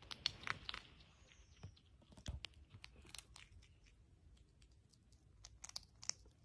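A galago (bushbaby) chewing and crunching a small piece of food held in its hands: faint, irregular crisp clicks and crackles, a few louder ones about half a second in and again near the end.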